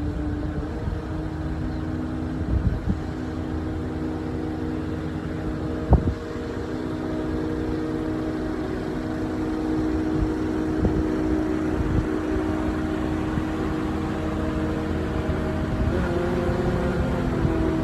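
Engine of heavy equipment running steadily under work, with a single sharp knock about six seconds in and a slight change in the engine note near the end.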